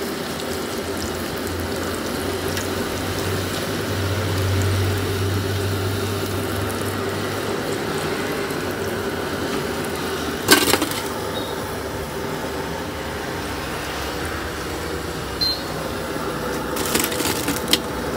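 Chicken rolls deep-frying in a large iron kadai of hot oil, sizzling and bubbling steadily. A single sharp clank comes about ten seconds in, and a few lighter clicks follow near the end.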